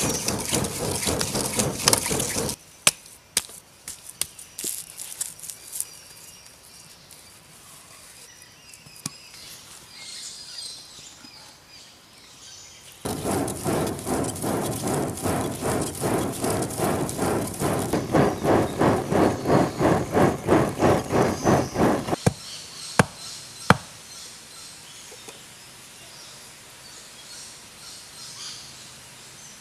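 A hand-spun clay centrifugal blower forcing air into a small wood fire. It makes a rushing whoosh that swells and fades about twice a second as the spindle is rolled back and forth between the palms, in two spells. In the quieter stretch between them the fire crackles. A few sharp knocks follow near the end, then only faint insects.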